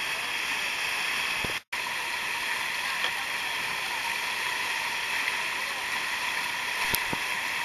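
Rushing whitewater of a river standing wave, a steady hiss of moving water, broken by a split-second dropout about two seconds in.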